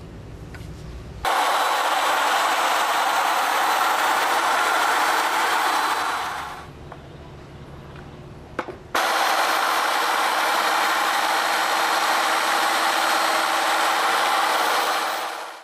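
DS301 handheld planetary polisher, driven by a FEIN polisher motor, running with its pads on a wet concrete countertop: a steady loud noise that starts abruptly about a second in and fades out around six seconds. It starts abruptly again about nine seconds in. In between there is a quieter low hum and a sharp click.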